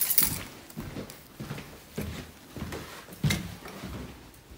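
Handling noise from a phone camera carried through the house, with scattered knocks, thumps and rustles; the loudest knock comes about three seconds in.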